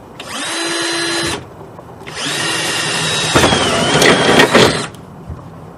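Electric drill run in two bursts: a short one of about a second, then a longer one of nearly three seconds. Each time the motor whine climbs to a steady pitch. In the second burst the sound gets louder and rougher as the bit cuts into the material to bore a hole for a toggle switch.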